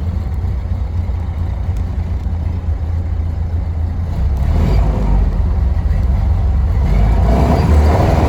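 Ford Model A engine heard from inside the car, a deep steady rumble that grows louder and fuller about halfway through as the car accelerates.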